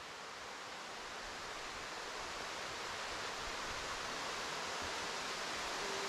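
Steady rushing of a waterfall, an even hiss of falling water that grows gradually louder.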